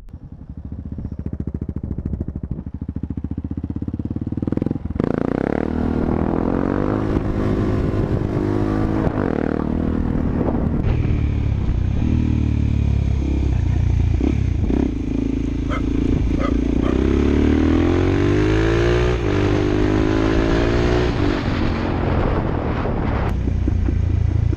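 Dual-sport motorcycle engine running under way, its pitch rising repeatedly as it accelerates and dropping back between gears, getting louder about five seconds in.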